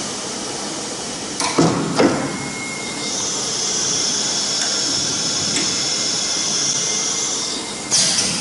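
An Omni CNC router changing tools automatically. Two sharp pneumatic clunks as the spindle releases and clamps a tool, then a steady high hiss of air with a faint steady whine for about five seconds, ending with another sudden burst of air.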